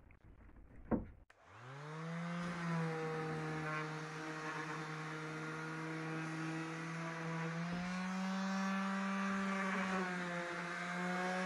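Bosch PSM 200 AES multi-sander switched on with a click about a second in, spinning up to a steady hum with a whine as it sands a slice of wood. Its pitch steps up slightly about two-thirds of the way through.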